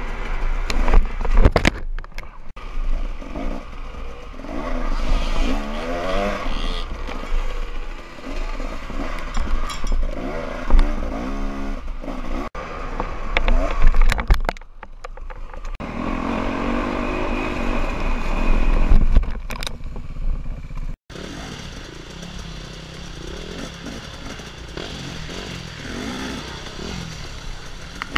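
Dirt bike engine revving up and down as it is ridden hard on a trail, heard from an onboard camera, with clattering and scraping knocks and a few sharp loud hits. The sound breaks off abruptly and resumes several times as clips cut.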